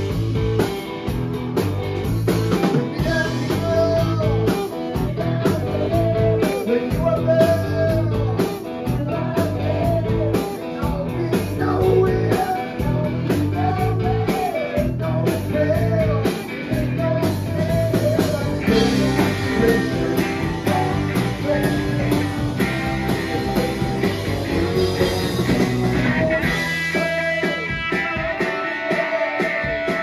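Live rock and roll band playing: electric guitars, drum kit and baritone saxophone under a lead vocal. The bass and drums drop out for a moment near the end.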